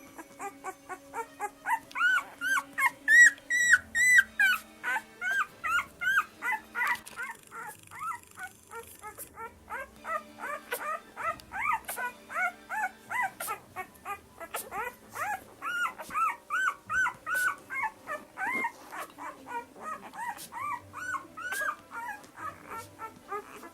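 Puppy whimpering and crying over and over, a run of high cries that rise and fall in pitch, about two a second.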